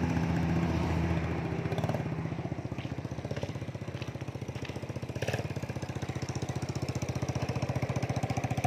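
Small step-through motorcycle's single-cylinder engine running at low speed with a steady rapid putter as it tows a two-wheeled cart. It fades as the bike moves off and grows louder again near the end as it comes back close.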